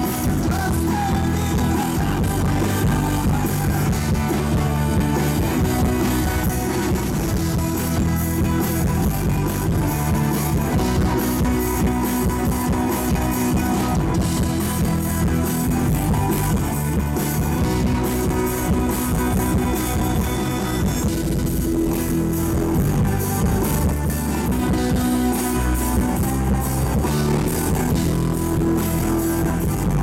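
Live rock band playing amplified through a PA: electric guitars and violin over a steady drum beat, continuous and loud.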